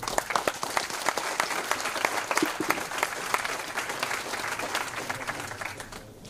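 Audience applauding: many hands clapping at once, the clapping thinning out and dying away near the end.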